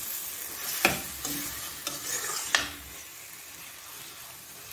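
Chicken pieces in masala sizzling in oil in a black iron kadai while a ladle stirs them, knocking and scraping against the pan about four times in the first three seconds. After that, a steady sizzle.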